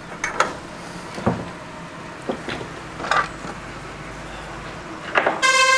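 A few light taps and clicks of hands and tools working on a stencil, then near the end a loud, steady buzzing tone sets in and holds.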